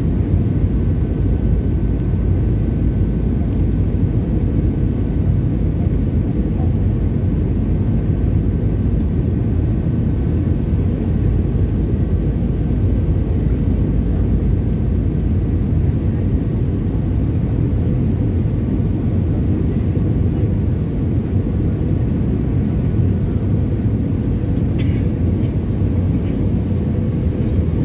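Steady cabin rumble of an Airbus A320 on descent, heard from inside the cabin: engine and airflow noise, deep and even, with a faint steady whine above it.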